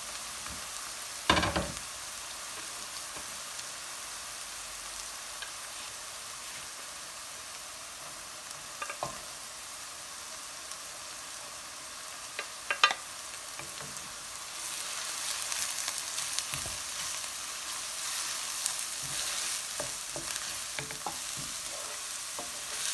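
Chopped red onion and garlic sizzling in oil in a pan while being stirred, with a few sharp knocks of the stirring utensil against the pan, about a second in and around nine and thirteen seconds. The sizzle grows louder from about fourteen seconds in.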